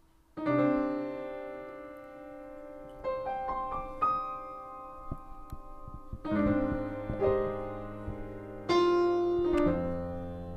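Upright piano played slowly: a chord struck about half a second in and left ringing, a few single notes stepping upward, then more held chords that sound and die away.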